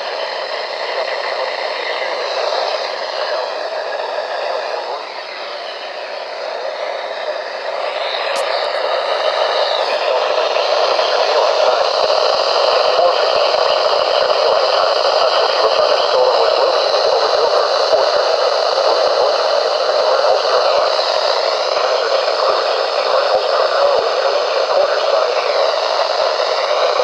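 Radio static: a steady hiss from a weak, breaking-up broadcast signal. It grows louder about eight seconds in.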